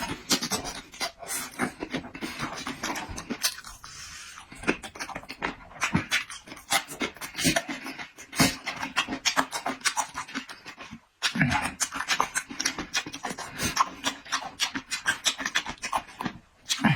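A person eating close to the microphone: chewing and lip-smacking in quick, irregular clicks, with a brief break about 11 seconds in.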